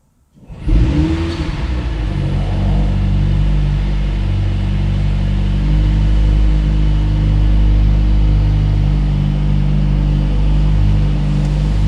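Mercedes-AMG C43's 2.0-litre four-cylinder turbo engine starting in emotion-start mode: it fires about half a second in with a quick rev flare that rises and falls back within a second, then settles into a steady idle, heard through the open window.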